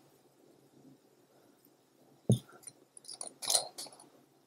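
Screw cap being twisted off a glass ink bottle: a sharp click about two seconds in, then a short run of light scrapes and clicks about a second later.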